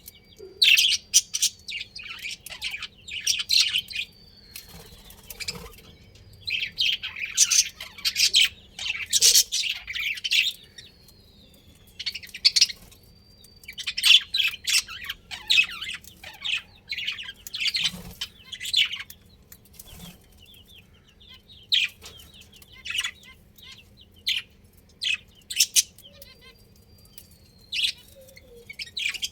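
Budgerigars chattering: bouts of rapid, scratchy chirps lasting a second or two, broken by short pauses, with an occasional thin drawn-out whistle.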